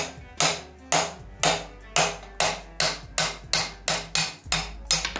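Repeated metal-on-metal strikes, about two a second with a short ring after each, from a ratchet handle being used to knock a sheared splined shaft out of a gearbox differential.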